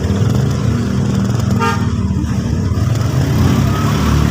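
Motor vehicle engine running steadily with a low rumble, and one short vehicle horn toot about one and a half seconds in.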